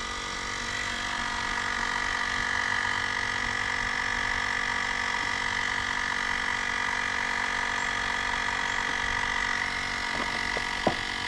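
Air compressor running steadily, inflating a tire toward 85 PSI to seat the bead, with a steady high whine. A single sharp click near the end.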